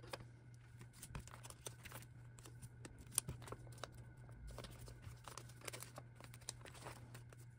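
Plastic photocard sleeves and binder pocket pages being handled: soft crinkling and rustling with scattered small clicks and taps, one sharper click about three seconds in.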